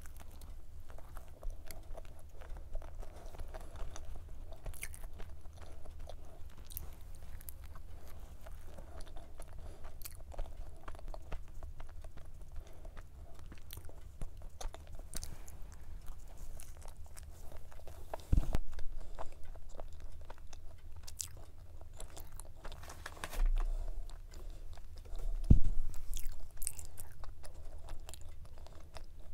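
Close-miked chewing and crunching of a 72-layer flaky pastry cube pie with vanilla cream, full of small crisp crackles as the layers break. There are two low thumps in the second half.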